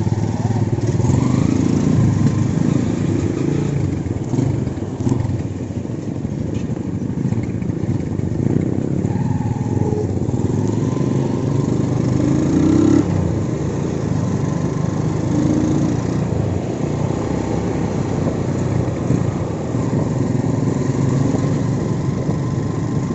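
Motorcycle engine running steadily, with small rises and falls in engine pitch.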